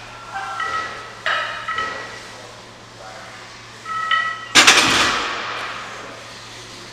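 Iron barbell plates clinking and ringing under a heavy barbell row. About four and a half seconds in there is one loud crash of the loaded bar, which rings on and fades over a second or so.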